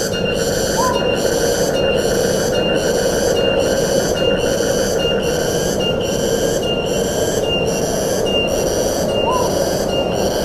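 Steady wind through forest trees, with an insect's high-pitched call pulsing evenly a little faster than once a second. A short rising chirp sounds twice, about a second in and near the end.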